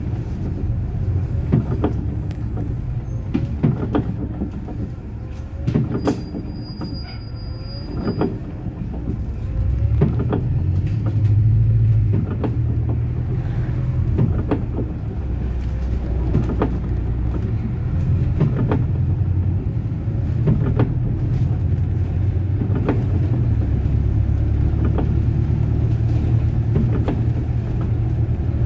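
Interior noise of a moving city bus: a steady low engine and road drone, with frequent short rattles and knocks. The drone swells louder about ten seconds in and again near the end.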